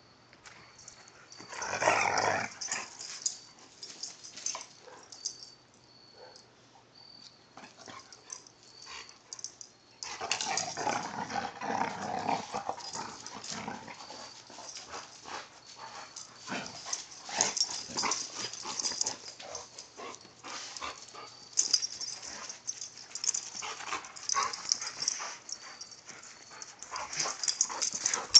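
Two dogs play-fighting, with growling, yips and scuffling. A loud outburst comes about two seconds in, and from about ten seconds in the rough play runs on without a break.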